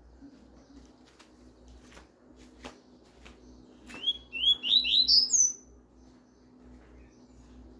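Caged male double-collared seedeater (coleiro) singing one short phrase of its classic Tuí-Tuí song about four seconds in: a quick run of notes that climb in pitch, ending on a high note. A few faint clicks come before it.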